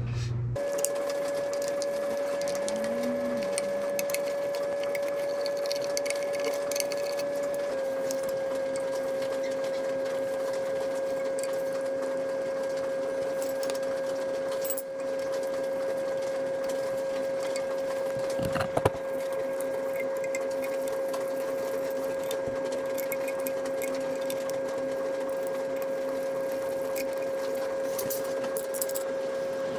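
A steady high-pitched whine at one pitch, stepping slightly lower about eight seconds in, with scattered light clicks and a sharp knock a little past halfway.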